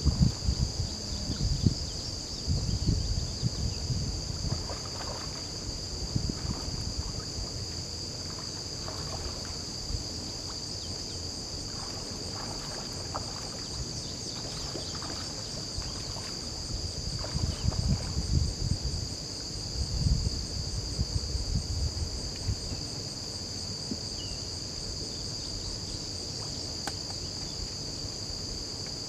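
A steady, high-pitched chorus of insects drones throughout, with a pulsing edge to it. Low rumbles of wind buffeting the microphone come and go at the start and again past the midpoint.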